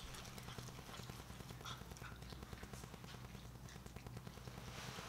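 Pomeranian eating from a plate: faint chewing and light clicks of its claws on a wooden floor, over a steady low hum.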